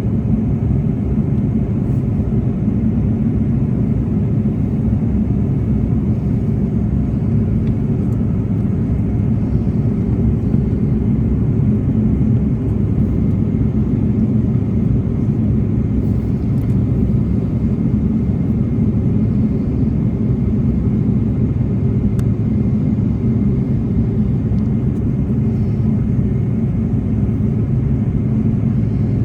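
Steady low rumble inside the cabin of an Airbus A330-300 in descent: airflow and engine noise heard from a window seat, unchanging throughout.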